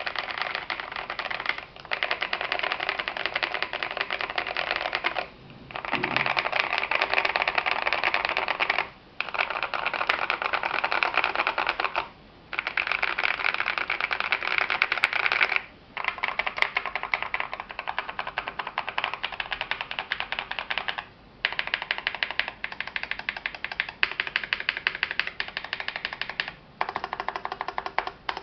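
Melody 96 mechanical keyboard with lubed Salmon switches and a tape and PE-foam mod being typed on fast: dense runs of key clacks lasting a few seconds each, broken by short pauses.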